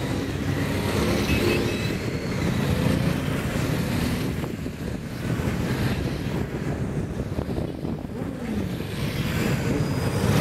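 Motor vehicles of a convoy running and driving past, a steady engine rumble, with one vehicle going by on a falling pitch about eight seconds in.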